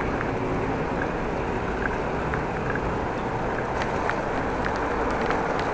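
Steady wind and rolling noise from a moving bicycle, picked up by a chest-mounted action camera, with a few light clicks and rattles about two-thirds through as the bike rolls over brick paving.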